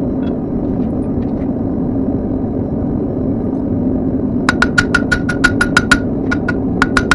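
A steady rushing noise, then from about halfway through a quick run of hammer blows on steel on an anvil, about six a second, each ringing with a bright clang, with a short break before they resume. The blows are light finishing strikes on a thin tapered steel toothpick.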